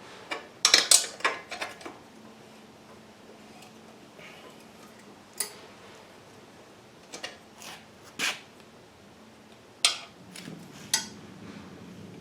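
An 18 mm wrench clinking and clanking on the hub axle nut of a fat-tire e-bike as the tight nut is worked loose: a quick cluster of metal knocks near the start, then single clinks every second or two.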